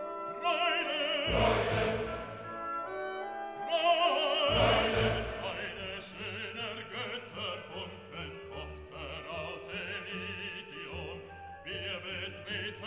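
Background music: classical operatic singing with a wide vibrato over an orchestra.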